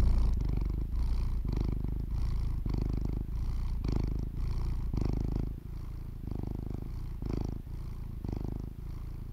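Domestic cat purring: a steady low rumble that swells and fades in a regular rhythm, about twice a second.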